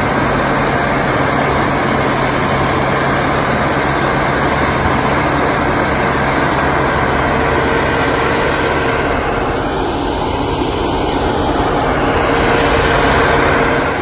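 Forestry mulcher working in brush: the carrier's engine running steadily with the mulching rotor, a continuous dense machine noise that grows a little louder near the end.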